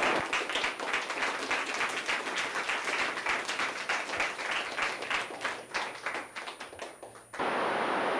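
A roomful of students applauding, the clapping dense at first, then thinning and fading over about seven seconds. A steady hiss cuts in abruptly near the end.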